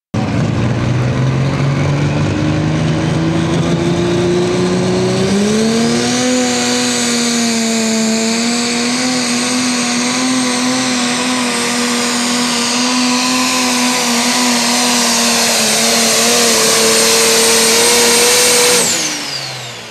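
John Deere 4250 super stock pulling tractor's engine at full throttle hauling the sled, revs climbing over the first five seconds and then holding high under load, with a high turbo whine over it. About a second before the end the throttle is cut and the engine note drops away.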